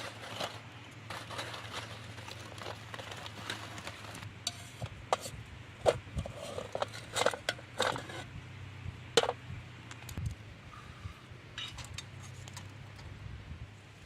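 Dishes and cutlery clinking and knocking, with a cluster of sharper clinks in the middle, over a steady low hum.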